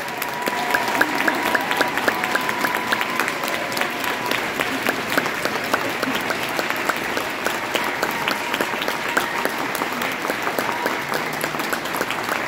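Audience applauding, a dense steady clapping. A thin steady high tone sounds over it for the first few seconds.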